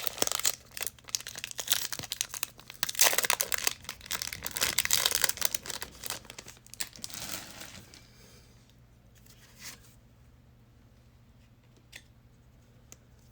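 Trading card pack wrapper being torn open and crinkled, a dense crackling rustle for most of the first seven seconds, then it drops away to a few light clicks and taps.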